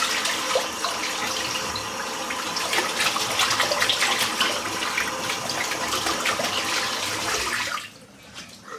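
Water running from a tap into a sink while a badger shaving brush is rinsed out under it, with small splashes; the tap shuts off near the end.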